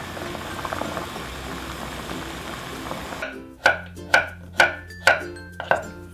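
Water at a rolling boil in a metal pot, a steady bubbling hiss, for about the first three seconds. Then a kitchen knife slices zucchini and a king oyster mushroom on a wooden cutting board, sharp knocks on the board about two a second. Light ukulele music plays underneath.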